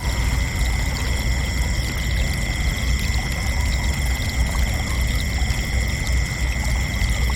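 Crickets trilling in one steady, continuous high tone over a constant low rushing noise.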